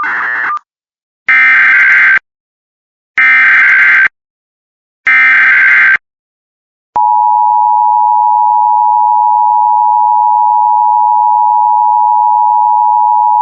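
Emergency Alert System SAME header: three buzzing data bursts of about a second each, evenly spaced, after a brief burst at the start. About seven seconds in, the steady EAS two-tone attention signal begins and holds without change.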